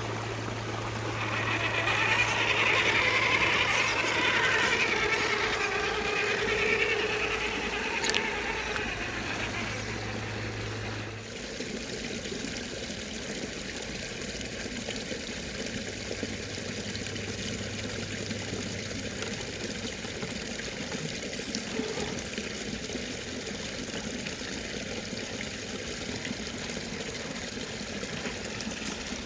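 Running water, as of a small stream, a steady rushing noise that is louder in the first few seconds and changes abruptly about eleven seconds in. A low steady hum sits under it at the start and briefly again later.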